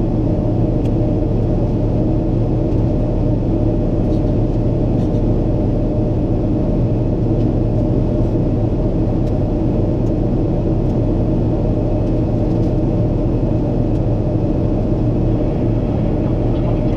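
Steady low rumble of a Boeing 777-300ER's jet engines and airflow, heard from inside the cabin, holding even throughout.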